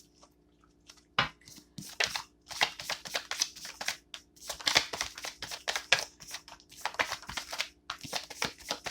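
Tarot cards being shuffled and handled: a quick run of papery flicks and taps that starts about a second in.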